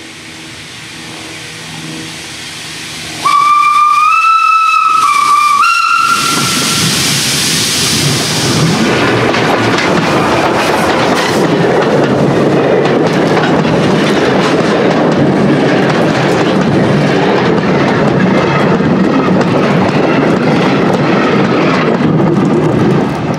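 SNCF 140C steam locomotive approaching, sounding its steam whistle about three seconds in for roughly three seconds, the pitch stepping slightly up, then passing right over the microphone with a burst of steam hiss. Its coaches follow, rolling overhead with loud, continuous wheel clatter that fades away near the end.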